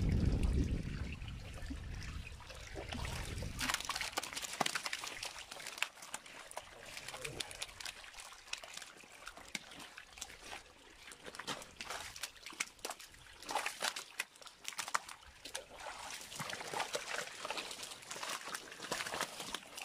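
Irregular wet slaps and splashes of carp flopping in a heap on wet concrete, with water trickling. A low rumble runs for the first few seconds.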